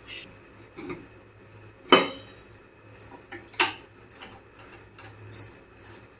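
Scattered clacks and knocks as the grinding-stone roller assembly of a vertical wet grinder is lowered into its stainless steel drum and fitted onto the centre shaft. The loudest knock comes about two seconds in and a second strong one about a second and a half later, with lighter clicks between.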